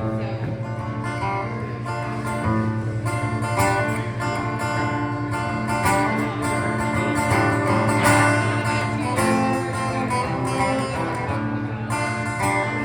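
Acoustic guitar strummed in a steady rhythm: the instrumental intro of a country song.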